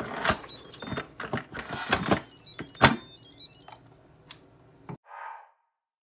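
Thick lamb korma gravy bubbling in a steel pot as it simmers down, with irregular sharp pops and splutters that stop abruptly about five seconds in.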